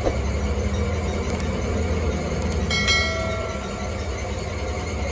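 Wheel lathe running with an aluminium alloy wheel spinning on it: a steady machine hum, with a brief high-pitched squeal about three seconds in.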